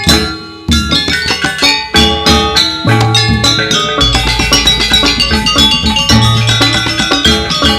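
Gamelan ensemble playing fast, dense patterns of struck metal keys with drums, the accompaniment to a Balinese bird-of-paradise dance. The music breaks off briefly just after the start, then comes back in and runs on.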